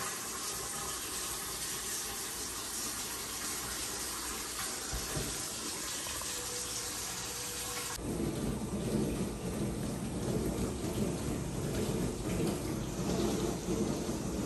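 Kitchen faucet running water into the sink with a steady hiss while the plumbing under the sink is checked for leaks. About eight seconds in the sound switches abruptly to a steady low rumble.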